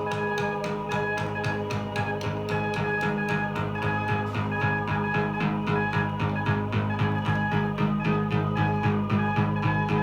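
Music with a steady quick beat and guitar, played back from a record on the Dual 1019 turntable.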